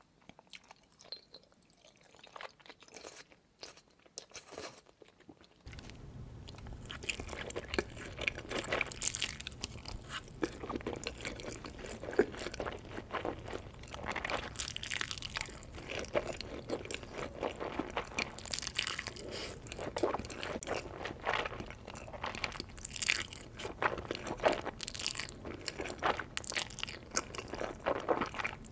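Close-miked chewing of Korean spicy noodles: irregular wet smacks and crunchy mouth clicks, sparse and faint at first and much denser after about six seconds, when a steady low hum also comes in.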